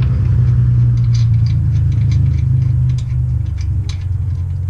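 A wrench taking off the last lug nut of a car wheel: short metallic ticks, several a second, over a steady low hum that eases about three seconds in.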